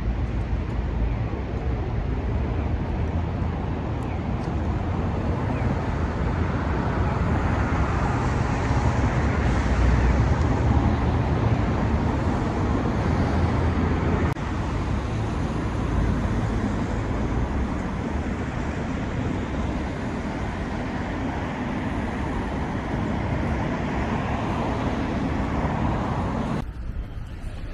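Road traffic noise: a steady rumble and hiss of passing vehicles, swelling about a third of the way in as a vehicle goes by, then easing. It drops off abruptly just before the end.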